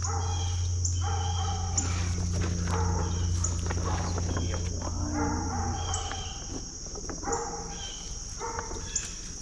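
Steady high-pitched insect drone with faint ticks about once a second, over a low hum, with scattered short animal calls.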